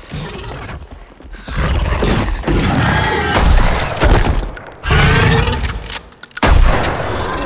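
Film sound effects from an action scene: a run of heavy crashes and thuds with shattering and breaking, the loudest hits about three and a half and six and a half seconds in.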